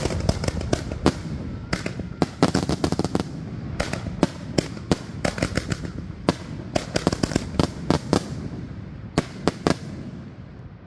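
Aerial fireworks display: many shells bursting in quick, irregular succession, with sharp bangs and crackling over a continuous rumble, thinning out near the end.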